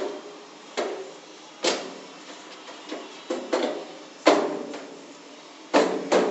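Hammer blows on a tool set against the door of a steel safety locker in a forced-entry attempt. There are about six or seven sharp metallic strikes at uneven spacing, each with a brief ring from the sheet-steel box.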